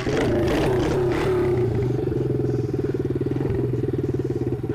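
Straight-piped pit bike's single-cylinder engine running right under the rider, loud and close. Its pitch wavers up and down for about the first second and a half as the throttle moves, then settles into an even, rapid firing beat.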